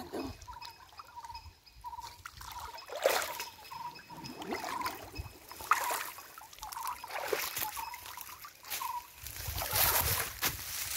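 River water splashing and trickling as a wet cast net with a large rohu caught in it is handled and lifted in shallow water. The water drips and sloshes steadily, with irregular louder splashes.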